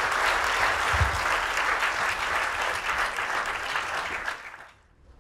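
Audience applauding, a dense patter of many hands that dies away near the end. A brief low thump about a second in.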